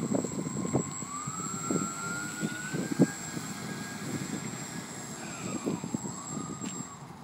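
Radio-controlled model airplane's motor and propeller whining as it taxis along the road. The pitch climbs steadily over the first few seconds, holds, then dips and comes back up near the end as the throttle changes. Irregular low thumps and crackle run underneath.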